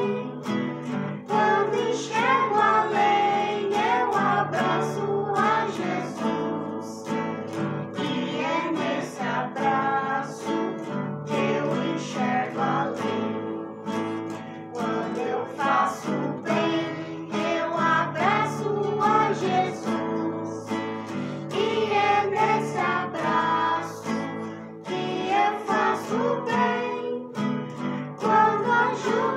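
A children's devotional song sung by girls and a woman, accompanied by two nylon-string classical guitars strummed and picked together.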